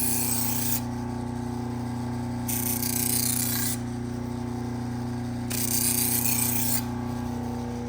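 Knife blade drawn along a spinning motor-driven sharpening wheel in three strokes, each a rasping hiss of a little over a second, over the machine's steady motor hum. The passes clear the spot where the edge still catches, a sign of leftover wire edge.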